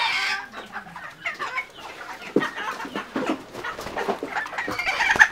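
Chickens clucking: a string of short, irregular calls, a little louder near the end.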